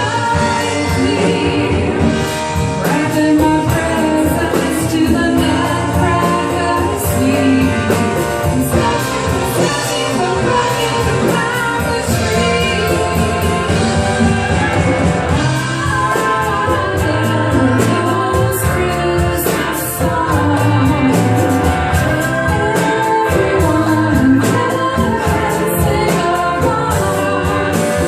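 Live band music with singers, a song with a steady drum beat.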